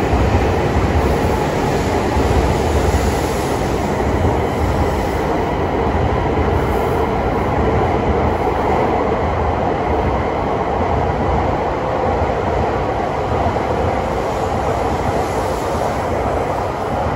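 Coupled E5-series and E6-series Shinkansen train pulling out of the station platform and gathering speed, with a steady rumble of wheels on rail and the running gear as the cars slide past. It eases off near the end as the last cars clear.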